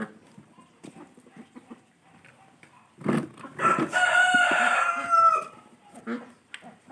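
Domestic fowl calling: one long, crowing call about three seconds in, held for about two and a half seconds, among short scattered clucks.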